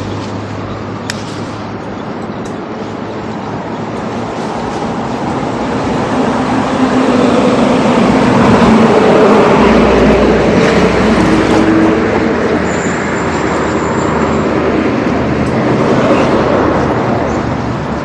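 Street traffic noise with a vehicle passing close by: the sound builds to its loudest about halfway through, then fades.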